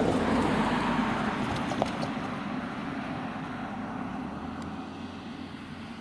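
A road vehicle going past, loudest at the start and fading steadily away, with one sharp click about two seconds in.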